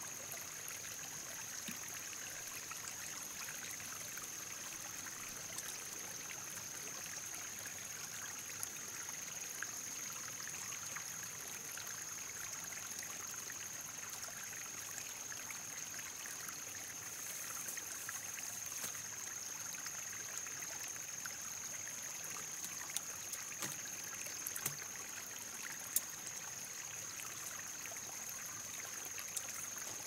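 Steady trickle of running water, with a steady high-pitched tone above it and a few faint clicks in the last third.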